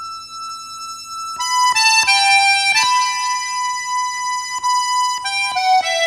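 Soundtrack music played on a reedy wind instrument. A single note is held at first, then from about a second and a half in a slow melody of long held notes begins.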